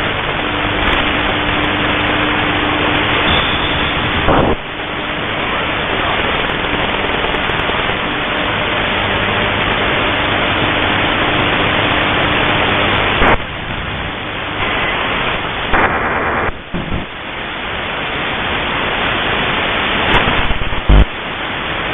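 Shortwave radio static: a loud steady hiss from the receiver with a faint steady tone in it, changing abruptly a few times, about four seconds in and again near the two-thirds mark.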